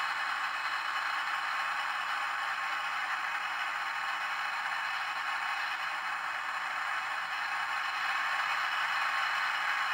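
The Space: 1999 Eagle Transporter's cruising engine sound effect, a steady hissing rush, played through the small speaker of a model-kit sound board. It eases slightly midway and swells a little near the end.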